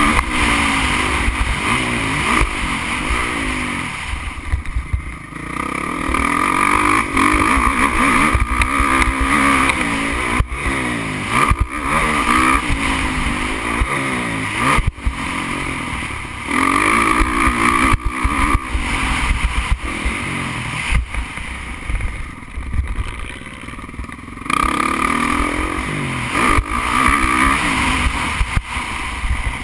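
MX1 motocross bike engine heard from onboard, revving hard through the gears in repeated rising sweeps of pitch that drop at each shift and climb again. The throttle backs off briefly about four to six seconds in and again a little past twenty seconds in.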